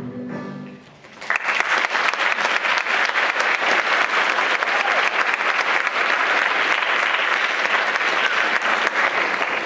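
The last notes of the song die away in the first second, then a theatre audience breaks into steady applause.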